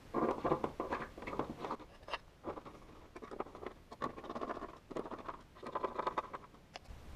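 Small screwdriver driving wing screws into a model aeroplane, the screw threads scratching and creaking as they turn, in about four short bursts with brief pauses between.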